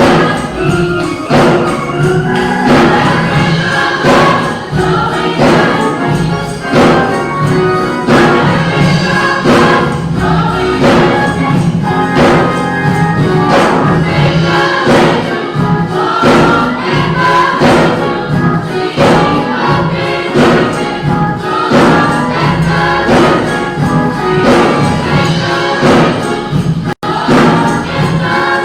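Gospel choir singing with band accompaniment over a steady beat. Near the end the sound drops out for a split second.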